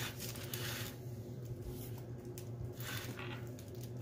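Silicone spatula spreading thick hot caramel over saltine crackers in a foil-lined pan: soft, sticky swishing scrapes, one at the start and another about three seconds in. A steady low hum runs underneath.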